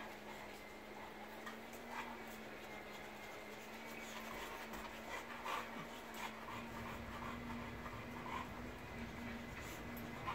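A dog making small sounds at close range, with light clicks and rustles scattered through, over a steady low hum.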